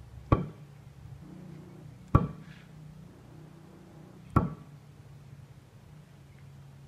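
Three throwing knives thud into a wooden stump one after another, about two seconds apart. Each strike is sharp, with a short metallic ring.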